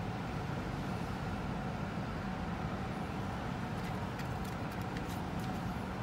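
Steady low rumble of an idling car heard from inside its cabin, with a few light ticks of paper being handled in the second half.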